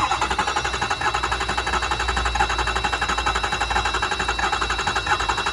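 Ford 6.0 L Power Stroke V8 diesel being spun over by its starter without firing, cranking with a rapid pulsing rhythm. The uneven cranking is what the mechanic takes for low compression in the engine.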